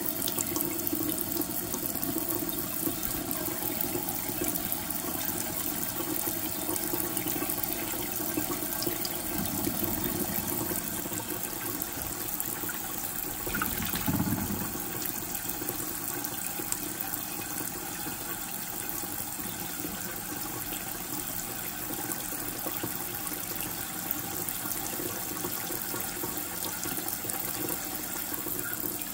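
Kitchen faucet running steadily, its stream splashing into a shallow ceramic bowl and onto a bathing green-cheeked conure, with spill-over into the steel sink. There is a short louder splash-like moment about halfway through.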